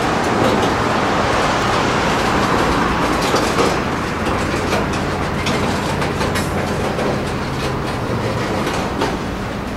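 Freight train cars rolling past: a steady rumble of steel wheels on rail with a few irregular clicks as wheels cross rail joints.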